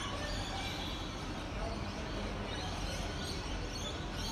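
Outdoor ambience: birds chirping faintly over a steady low rumble and hiss.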